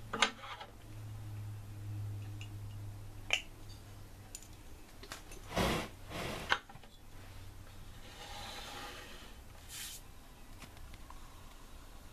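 Handling noises from a small die-cast model airliner and its stand: a few sharp clicks and knocks, with a louder scrape a little past halfway and a softer rustle later. A low steady hum runs underneath.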